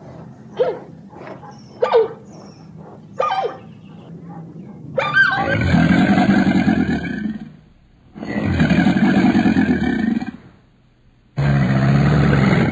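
A large animal giving three long, loud roaring calls, each about two seconds, after four short yelping calls.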